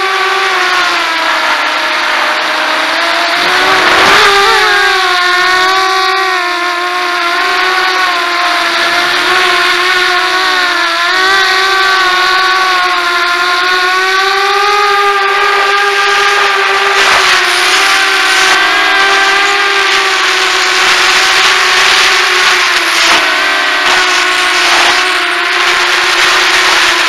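Walkera Runner 250 quadcopter's brushless motors and propellers, heard from on board: a steady, high multi-toned whine whose pitch rises and falls as the throttle changes. Short rushes of wind noise come through in the second half.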